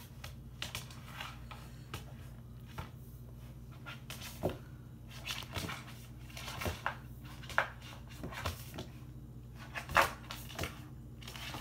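A Bernese Mountain Dog puppy chewing and playing with a bone on a hardwood floor: irregular clicks, knocks and gnawing as the bone is chewed and knocked about, the loudest knock about ten seconds in. A steady low hum runs underneath.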